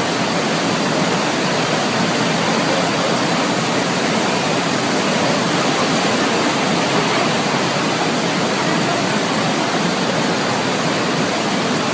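Fast-flowing floodwater rushing, a steady, loud, unbroken noise.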